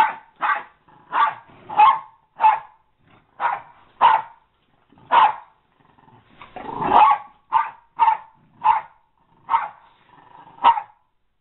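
American Eskimo dogs barking in rough play: a string of about fourteen short, sharp barks, one every half second to second, with a longer, rougher bark mixed with growling about seven seconds in.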